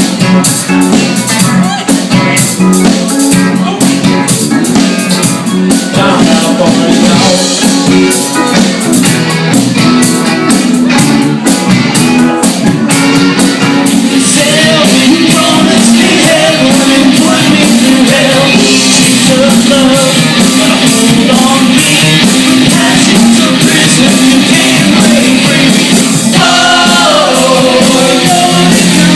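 Rock band playing live: two electric guitars and drums, with a voice singing at times.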